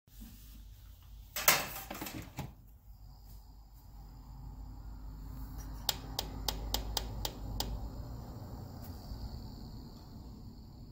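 AC Infinity Airtitan ventilator fan running with a steady low rumble of moving air and a faint high whine. About a second and a half in, a burst of rustling knocks, the loudest sound. Around six seconds in comes a quick run of about seven clicks, roughly three a second, as the controller's speed buttons are pressed, and the fan's sound swells and then eases.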